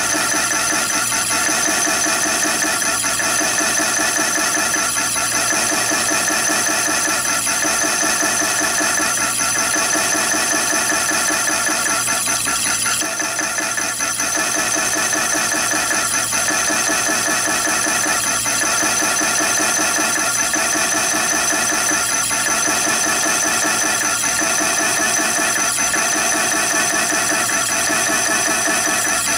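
Chinese mini lathe running at about 350 RPM, its HSS slitting saw cutting a cross slot in a brass bar: a steady, even machine whine and hum made of several tones, with a faint slow pulse.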